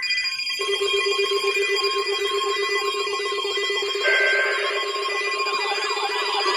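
NOAA Weather Radio tone alarm test: several weather radio alarm tones sounding together, steady tones with warbling tones layered over them. A brighter, higher tone joins about four seconds in.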